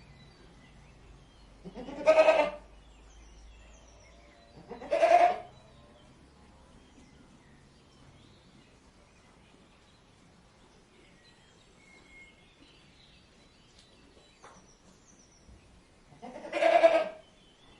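Goat bleating three times, each a wavering call of about a second. Two come close together in the first third, then there is a long pause with only faint background noise before the third near the end.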